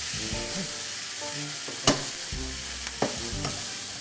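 Chicken sizzling in a stainless steel frying pan while a knife and fork cut through it, the metal utensils clinking and scraping against the pan. The sharpest clink comes about two seconds in, with lighter ones near the end.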